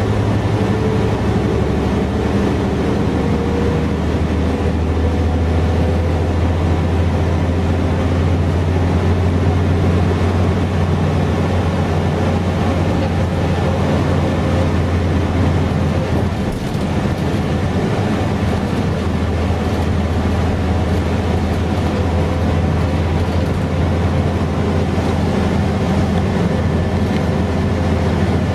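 Mercedes-Benz O407 bus under way, heard from inside the passenger cabin: a steady diesel engine drone with road noise. A faint whine rises slowly in the first few seconds, and the drone briefly eases off a little past halfway.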